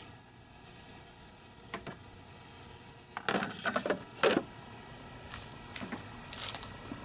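Ultrasonic cleaner running with a steady high-pitched hiss as it cleans dried grease from hose-reel parts in its basket. A few clicks and knocks of handling, the loudest past the middle.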